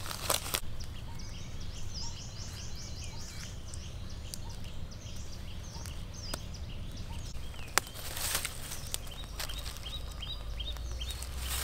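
Birds chirping in quick repeated series of short calls, over a steady low rumble of outdoor ambience. A few sharp clicks and rustles of dry sticks being handled, one click standing out about eight seconds in.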